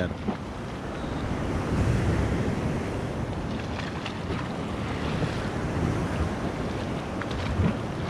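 Sea waves surging and washing against a concrete breakwater, swelling louder about two seconds in, with wind buffeting the microphone.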